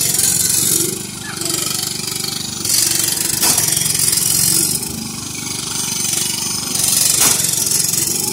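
Small engines of two riding lawn mowers running hard as the mowers push against each other, surging louder twice, around three seconds in and again near the end.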